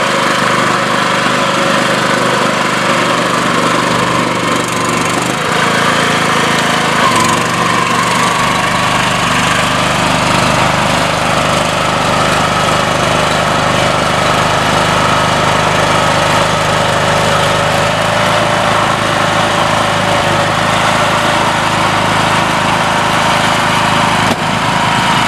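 Small engine of a BCS walk-behind tractor running steadily under load as it drives a small round baler. The engine note shifts about six seconds in, and a deeper rumble joins after that.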